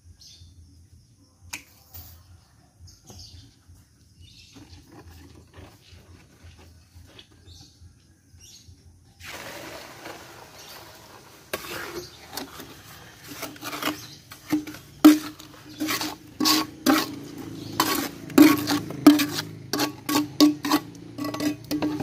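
A metal spoon clinking and scraping against a sheet-metal mould while wet concrete is smoothed: quick irregular strikes with a ringing metallic note, starting about nine seconds in and getting louder. Before that, only faint scattered clicks.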